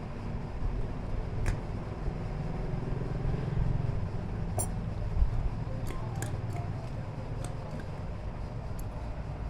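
Workshop sounds: a steady low hum or rumble with a few light clicks and taps scattered through it.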